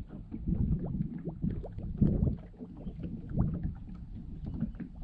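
Lake water lapping and slapping irregularly against the hull of a Ranger bass boat, a run of uneven low slaps and splashy knocks.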